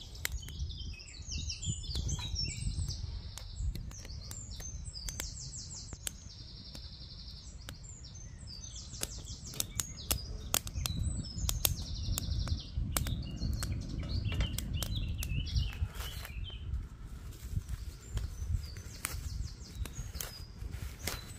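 Songbirds singing repeated trilled phrases over the irregular crackle and pop of a wood fire burning in a folding stainless-steel camp stove, with a low rumble underneath.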